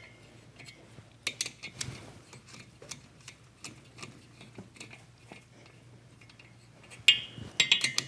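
Light metallic clicks and clinks of a socket wrench and hand tools working on the cylinder head nuts, with louder metal clanks about a second in and again near the end.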